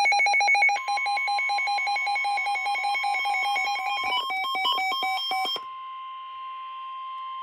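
NOAA Weather Radio's steady 1050 Hz warning alarm tone, sounding ahead of a tornado warning broadcast. It starts about a second in and holds to the end, layered at first under a rapid electronic alarm beeping at about ten beeps a second in shifting pitches, which cuts off abruptly a little over halfway through.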